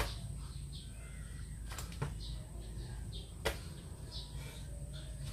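Sharp knocks every one and a half to two seconds from a person doing burpees, with short bird chirps in the background.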